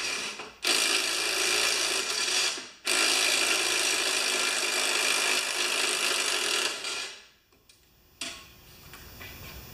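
Cordless drill/driver spinning off a nylon-insert lock nut, in two long steady runs with a short break about 3 s in. It stops about 7 s in.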